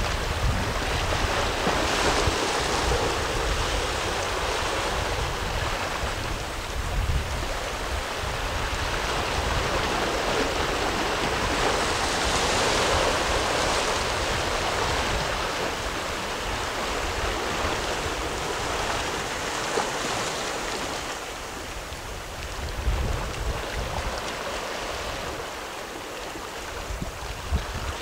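Sea surf washing against shore rocks, swelling and easing every several seconds, with wind rumbling on the microphone.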